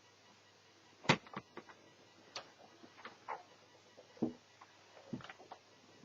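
Irregular clicks and taps from handling a netbook's small parts and tools, the sharpest about a second in.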